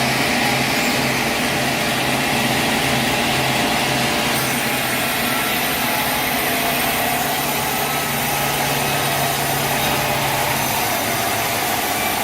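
Machinery with an engine running steadily, a dense even noise with a low pulsing hum that fades out near the end.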